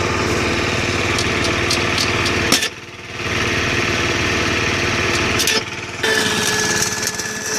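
An engine runs steadily, dipping briefly twice. About six seconds in, a stick-welding arc strikes and crackles against the steel frame.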